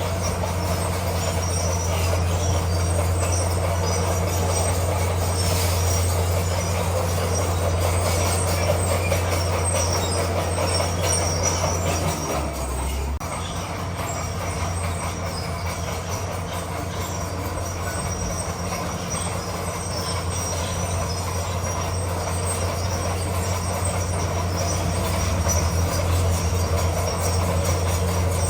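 Bulldozer's diesel engine running steadily under load, with the squeal and clatter of its steel crawler tracks as it pushes stone. The engine note changes briefly about halfway through.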